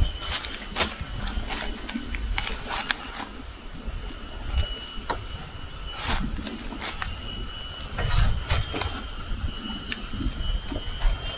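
High, steady whine of cicadas that starts and stops every couple of seconds, over scattered knocks, thumps and rustling of dry leaf litter as a wooden post is rocked and pushed upright into a hole in the ground.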